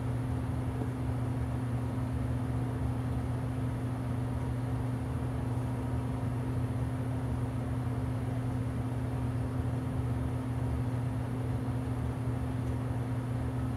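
Transformer soldering gun humming steadily with its trigger held, a low mains buzz, as its loop tip heats a twisted linesman splice and rosin-core solder melts into the wire strands.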